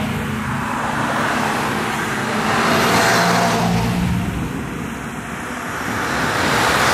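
Convoy of fire-brigade and Red Cross trucks driving past one after another, engine and tyre noise swelling and fading as each goes by: one passes about three seconds in and the next is closing in near the end.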